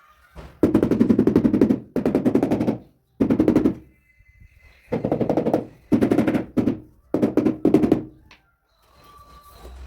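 Power tool with a rapid hammering action, run in about seven bursts of roughly a second each with short pauses between them, each burst a fast even rattle of impacts.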